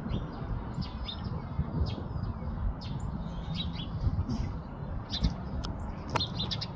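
Small birds chirping, with many short scattered calls overlapping, over a steady low rumble.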